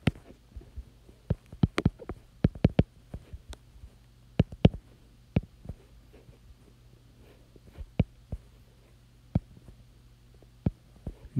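A stylus tapping and clicking irregularly on an iPad's glass screen while handwriting, in uneven clusters of sharp taps, over a faint low steady hum.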